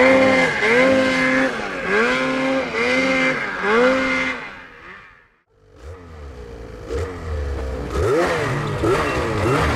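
Snowmobile engine revving up and down about once a second as the sled pushes up a slope in deep powder. The sound fades out about halfway through, then a snowmobile engine rumbles close by and runs with a wavering pitch near the end.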